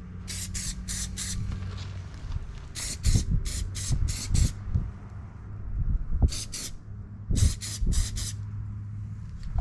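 Spray paint hissing out of a nozzle in short spurts, about sixteen in four quick groups, as a repaired windrower part is coated against rust.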